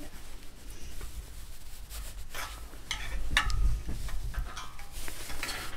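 A cut piece of thin metal siding trim being bent with needle-nose pliers: metal scraping and clicking against the pliers' jaws, with a cluster of sharper clicks from about two to three and a half seconds in, over a low rumble.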